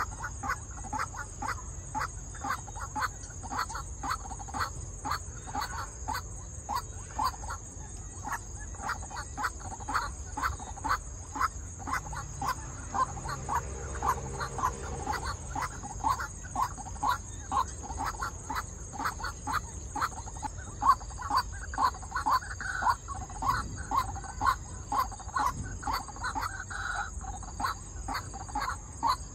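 White-breasted waterhen calling: a long, steady series of short repeated notes, about two a second, with some higher notes joining in near the end. It is a decoy bird calling from a trap cage to lure wild waterhens.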